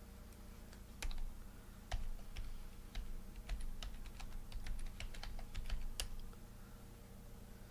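Typing on a computer keyboard: an irregular run of key clicks starting about a second in and stopping near six seconds, over a faint steady hum.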